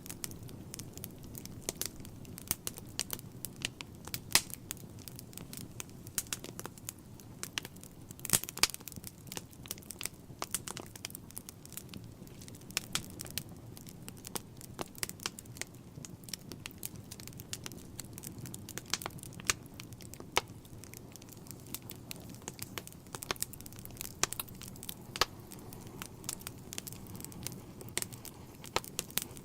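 Wood fire burning in a fireplace: logs crackling with many irregular sharp pops, a few louder than the rest, over a low, steady rumble of the flames.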